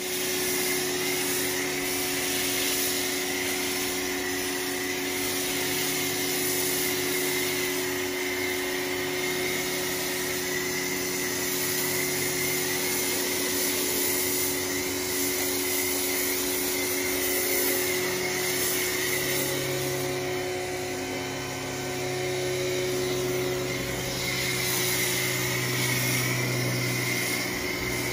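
Plug-in electric pressure washer running with a snow foam lance spraying: a steady motor hum with a hiss of spray. A few of the low tones shift pitch partway through.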